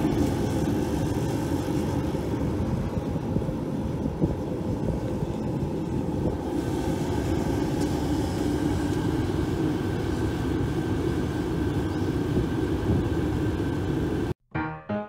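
Orion HPE310-L kerosene jet heater running: the steady rush of its blower fan and burner. It cuts off suddenly near the end, where piano music starts.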